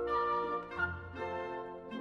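Instrumental background music: a melody of held notes over a low bass line.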